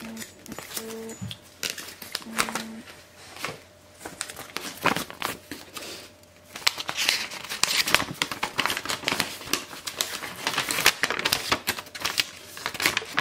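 A sheet of paper being handled and unfolded, crinkling and rustling in quick, irregular crackles that grow busier about halfway through.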